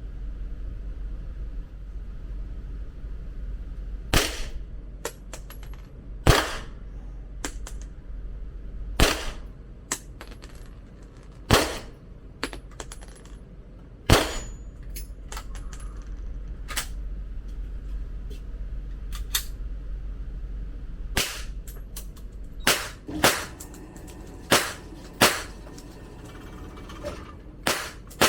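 Gunshots on a shooting range: about five single shots spaced two to three seconds apart, then a quicker run of shots in the last third, with fainter cracks in between.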